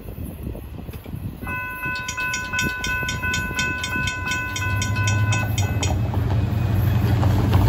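Railroad grade-crossing warning bell ringing in a fast, even rhythm of about four strikes a second for several seconds while the crossing gates lift, then stopping. Low rumble at first; near the end a pickup truck's engine grows louder as it drives over the crossing.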